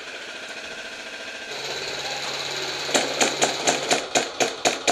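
Airsoft rifle fire in a gunfight. A steady buzzing rattle fills the first few seconds. Then about eight sharp single shots follow at roughly four a second.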